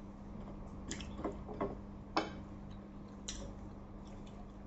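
Quiet eating by hand at a table: a few scattered light clicks and taps of fingers, food and plates, over a faint steady hum.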